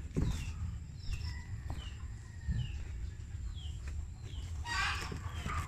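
Chickens calling in the background: a run of short, high, falling peeps, about two a second, over a low steady hum, with a brief louder noisy burst near the end.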